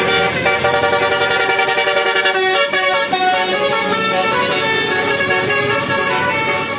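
Bus 'telolet' multi-tone horn playing a quick melody of stepped notes, with a brief break about two and a half seconds in.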